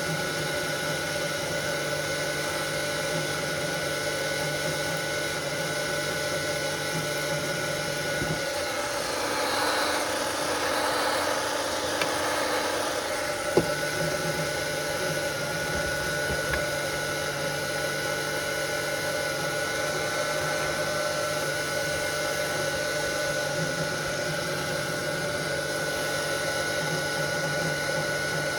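Steady electrical machine hum with several fixed tones. Midway a rush of noise swells for a few seconds, and a single sharp click comes about halfway through.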